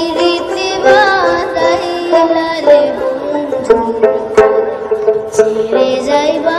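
Background music: a melody over stacked tones with regular sharp drum strikes.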